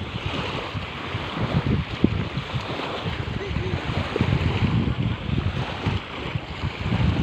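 Sea surf washing in, with wind buffeting the microphone in uneven low rumbles.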